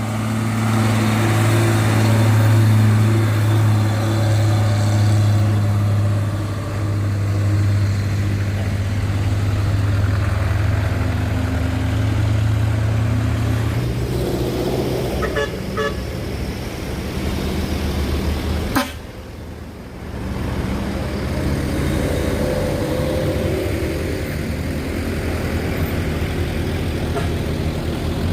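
Heavy diesel vehicle engine droning steadily at a low pitch, then fading into mixed road traffic noise with a few short horn toots; a sharp click about two-thirds of the way through is followed by a brief drop in level.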